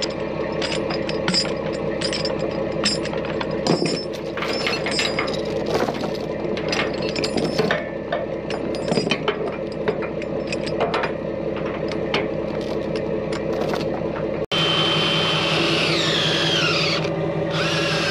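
Heavy-equipment engine running steadily under many irregular metal clanks, clicks and squeaks from machinery being loaded onto a lowboy trailer. About three-quarters of the way through the sound cuts to an engine running with a whine that falls in pitch.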